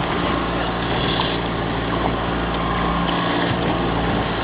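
Motorboat engine running steadily at a constant speed, a continuous even drone.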